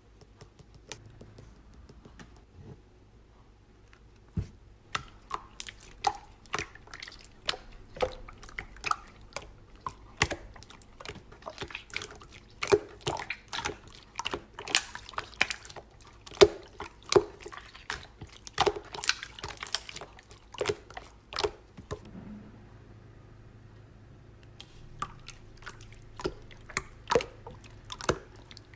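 Slime being squished and pressed by hand, making a fast, irregular run of sharp wet pops and clicks that starts a few seconds in, with a short lull about three-quarters through.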